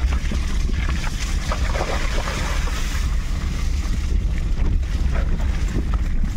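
Wind buffeting the microphone outdoors: a steady low rumble under an even rushing hiss.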